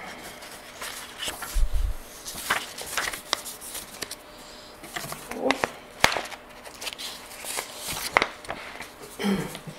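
Room sound in a lecture room during a pause: scattered small clicks and knocks, with two brief murmurs of a voice, one about five seconds in and one near the end.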